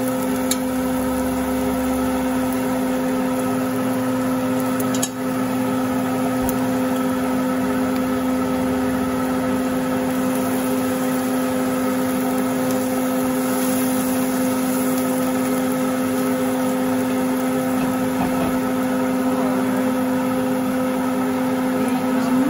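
Kitchen exhaust fan over the stove running with a steady, even hum, with a single light knock about five seconds in.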